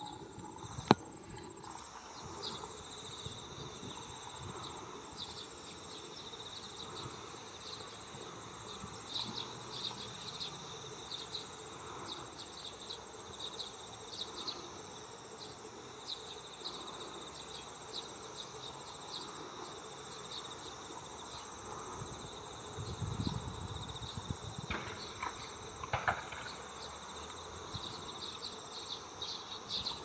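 Steady high-pitched chorus of insects singing in a ripening rice field, a continuous trill with many quick pulses. A brief low rumble comes in about two-thirds of the way through.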